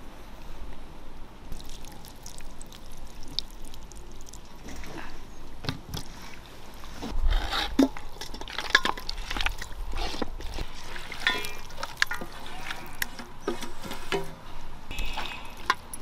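Water pouring and splashing, with irregular knocks and clatters.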